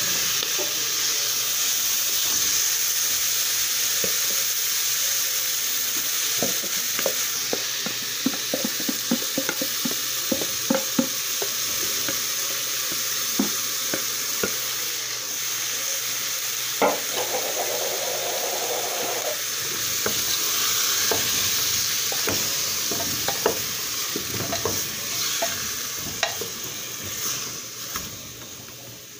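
Seasoned tortoise meat sizzling as it is tipped into hot fried garlic in an aluminium pressure cooker, with repeated clicks and scrapes of a spoon against the plastic tub and the pot. The sizzle eases off near the end.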